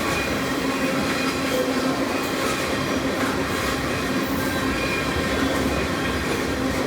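CN freight train's cars rolling past steadily, with thin wheel squeals now and then over the rumble of the wheels on the rails.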